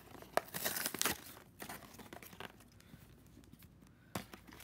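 Toy train's box packaging being torn open and handled: tearing and crinkling, busiest in the first second or so, then scattered small clicks and rustles.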